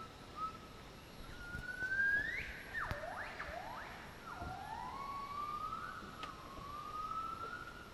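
Gibbon song: a pure, whooping call made of gliding notes, first one long note rising in pitch, then about two seconds in a run of quick swoops down and up, then slower rising notes.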